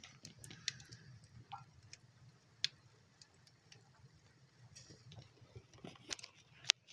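Wood fire crackling in a wood stove's firebox: scattered, irregular pops and snaps over a faint low rumble, the sharpest pop near the end.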